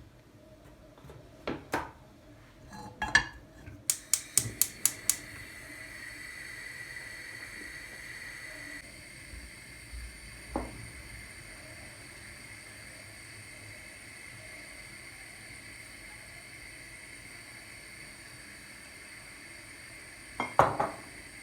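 Kitchenware knocking and clinking: pots, dishes and utensils being handled. About four seconds in comes a quick run of about six sharp clicks, followed by a steady high hum that carries on, with a few more clattering knocks near the end.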